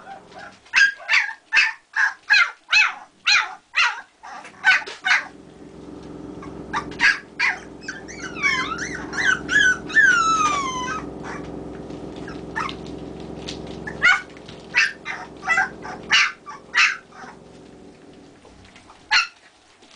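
24-day-old Kerry Blue Terrier puppies yapping, about three short high yaps a second at first, with whining squeals that fall in pitch around the middle, then more scattered yaps. The puppies are awake and hungry, demanding to be fed. A steady low hum sits underneath for several seconds in the middle.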